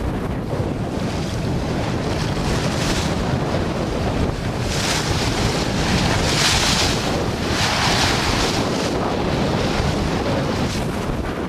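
Wind buffeting the microphone over water rushing and splashing along the hull of a Capital Yachts Neptune 24 sailboat as it sails heeled through waves. About halfway through, bow spray gives several louder hissing surges.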